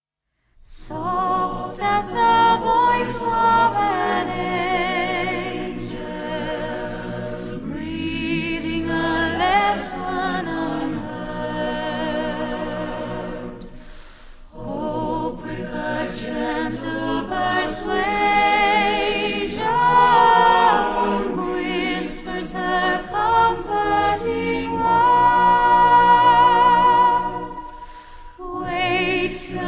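An a cappella choir singing, with wavering held notes. The singing starts about half a second in and dips briefly about halfway and again near the end.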